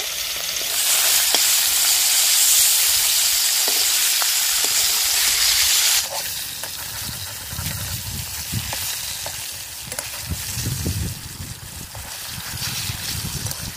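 Pieces of pangas fish sizzling loudly as they go into hot mustard oil in a metal wok (kadhai). About six seconds in the sizzle drops suddenly to a quieter, steady frying, with light clinks of a metal spatula against the wok.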